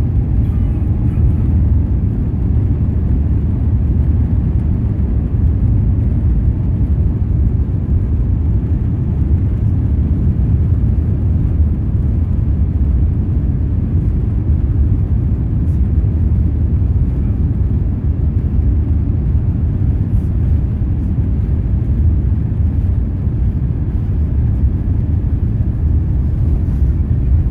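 Airbus A350 cabin noise during takeoff: a loud, steady low rumble from the Rolls-Royce Trent XWB engines at takeoff power.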